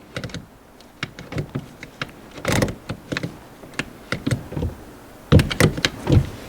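Clicks and clunks of a Nissan Altima's gear shifter being worked out of and back into park while its repaired shift-lock is tested. They come in short clusters, thickest about two and a half seconds in and again near the end.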